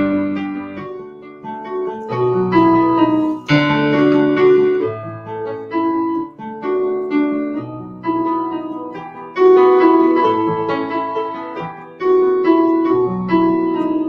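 Slow piano music, notes and chords struck and left to ring and fade.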